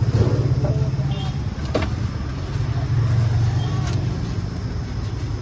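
A steady low mechanical rumble, like a nearby engine, swelling and easing a little, with a couple of faint clicks.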